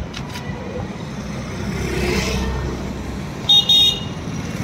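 An engine running at idle with a low, steady pulsing beat, and a vehicle horn tooting twice in quick succession about three and a half seconds in.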